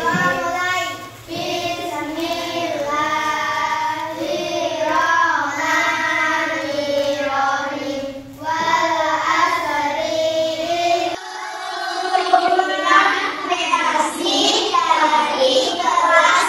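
Children's voices singing together in unison, a melodic song that runs on throughout. About eleven seconds in, the sound changes abruptly.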